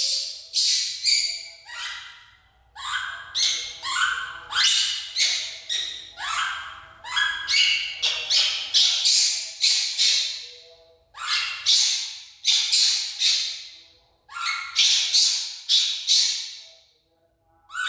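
Baby monkey screaming: strings of shrill cries that each sweep upward, several a second, in bouts broken by short pauses.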